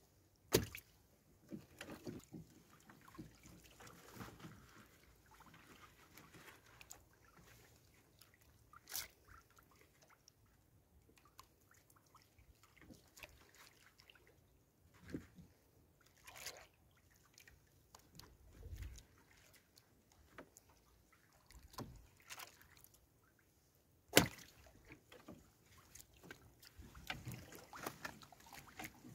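Fishing net being hauled in and handled on a small wooden outrigger boat: faint rustling with a few sharp knocks, the loudest about 24 seconds in.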